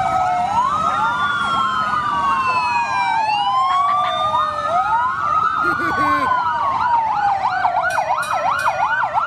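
Several fire truck sirens sounding together: overlapping slow wails rising and falling in pitch, joined in the second half by a rapid yelping siren.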